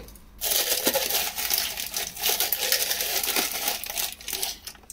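Crinkly rustling and fine crackling of a packet of bicarbonate of soda being handled as the powder is poured out, starting about half a second in and stopping just before the end.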